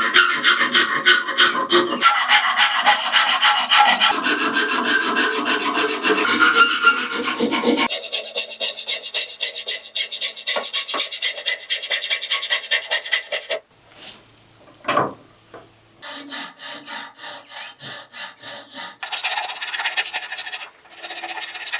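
A small wooden arrowhead being worked by hand with an abrasive tool, rapid back-and-forth scraping strokes. The strokes come in several stretches that change character abruptly, with a brief lull about two-thirds of the way through.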